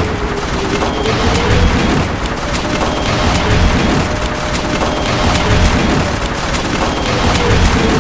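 Battle sound effects: a continuous din of rapid gunfire and booms, with a faint tone that dips and rises underneath.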